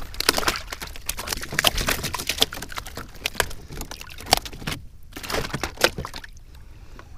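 Water splashing and dripping, with many quick knocks and clatters against the kayak, as a freshly landed fluke is handled aboard. The knocks stop about six seconds in.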